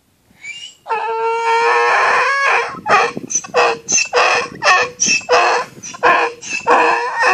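Donkey braying: a long drawn-out call beginning about a second in, followed by a run of loud rhythmic hee-haw pulses at about two a second.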